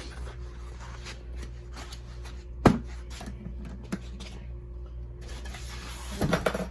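Packing noises as a suitcase record player is fitted into foam inserts and its cardboard box: one sharp knock about two and a half seconds in and a few lighter clicks, then rustling and a cluster of knocks near the end, over a steady low hum.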